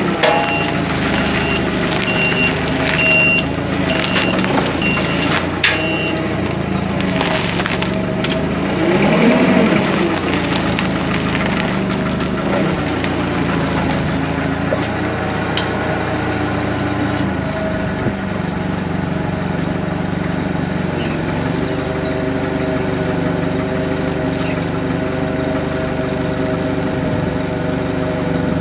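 LPG forklift engine running steadily, with its reversing beeper sounding in short repeated beeps for the first several seconds. Around ten seconds in, the engine note briefly rises and falls.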